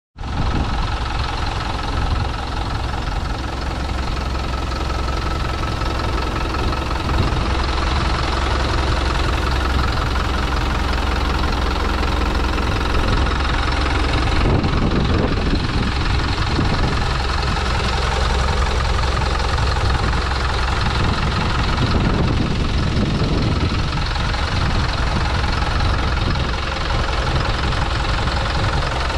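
Hino 300 truck's four-cylinder diesel engine idling steadily with a knocking diesel clatter, heard close up with the cab tilted forward and the engine bay open.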